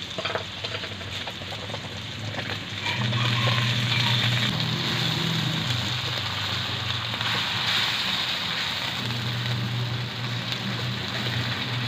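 Corned beef and onions sizzling in a hot wok, stirred and scraped with a wooden spatula; the sizzling grows louder about three seconds in. A low hum comes and goes underneath.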